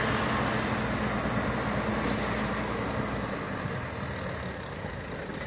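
Engine of a slow-moving vehicle running steadily, with a little road noise; it gets slightly quieter about three and a half seconds in.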